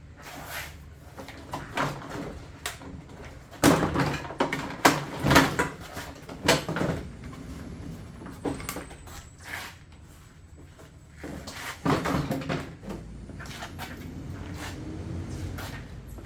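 Irregular knocks and clunks of engine parts and tools being handled and set down during the teardown of an ATV engine, loudest in a cluster a few seconds in and again briefly later, over a low background rumble.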